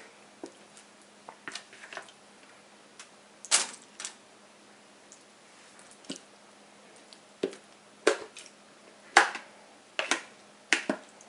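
Metal kitchen tongs clicking and tapping as marinated chicken wings are picked out of a bowl and set down on a foil-lined oven tray: a dozen or so sharp, irregular clicks at uneven gaps.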